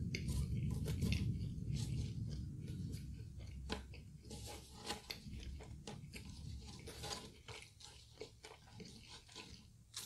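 A person chewing crispy fried food close to the microphone, loudest in the first few seconds, with many short crisp crunches and clicks throughout.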